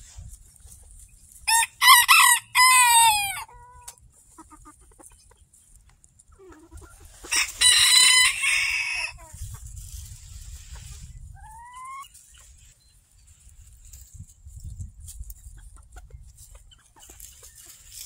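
A rooster crows twice: a first crow a little after the start, falling in pitch over its last notes, and a second, harsher crow near the middle. A short rising chicken call follows a few seconds later.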